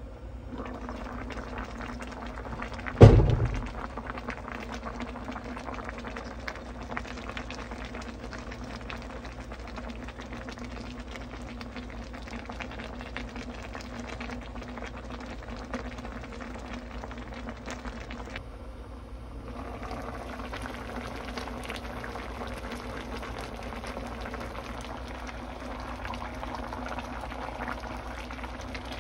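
Kimchi-braised mackerel simmering in a pot: a steady crackling bubble of boiling broth. One loud low thump about three seconds in.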